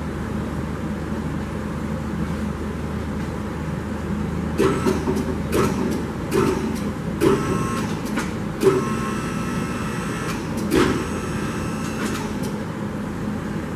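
Electric hydraulic pump motor of a two-post car lift running steadily as it raises a car body off its engine. From about four seconds in, a series of short clacks and squeaks, some with a thin ringing squeal, breaks over the hum.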